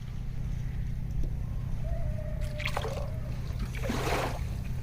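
Water dripping and splashing in short swishes over a steady low hum.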